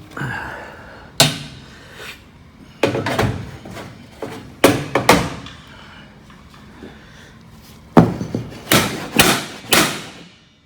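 Hollow metal door frame being knocked and banged into place: a series of sharp metallic clangs with ringing tails, one about a second in, a cluster of several around three to five seconds in, and another quick run of four near the end.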